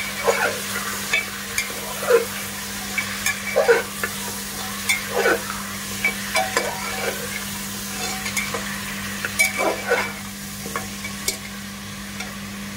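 Bone-in mutton pieces sizzling in hot mustard oil with whole spices in an aluminium pressure cooker. A steel ladle stirs them, scraping and clinking against the pot every second or so, at the frying (bhunao) stage of the meat. A steady low hum runs underneath.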